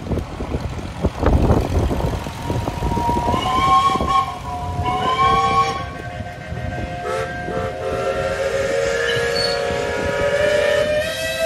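Steam whistles blowing long, held notes in several pitches at once, starting about three seconds in and sounding on and off to the end, over the running of a Farmall tractor engine.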